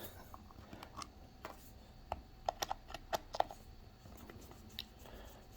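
Faint scattered clicks and light taps from a small plastic bass knob and a hand tool being handled, most of them bunched between about one and a half and three and a half seconds in.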